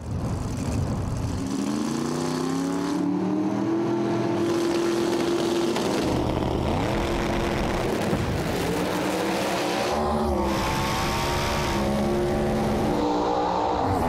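Two no-prep drag-race cars' engines at full throttle down the strip, the engine pitch climbing and levelling off several times over.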